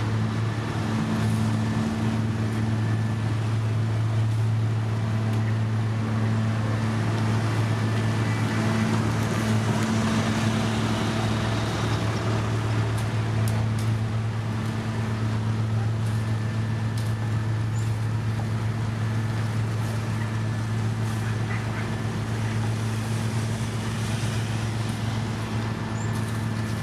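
Heavy road-construction machinery running steadily: a diesel engine's constant low hum with no change in speed.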